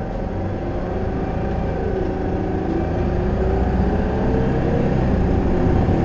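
Isuzu Erga city bus's diesel engine heard from inside the cabin, pulling hard in a low gear and growing steadily louder. A whining tone runs over the rumble and dips, then climbs again, about two seconds in. This is the bus nicknamed "vacuum cleaner" for its unusual noise.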